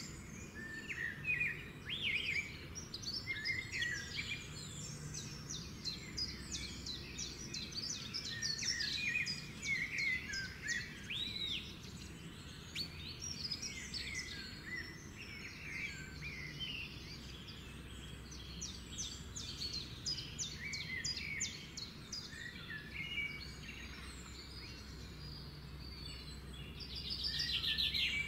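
Several birds chirping and singing in quick, overlapping calls, over a faint steady low hum.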